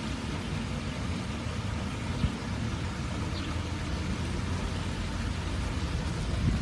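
Steady low rumbling background noise with no distinct events, apart from one faint tap about two seconds in.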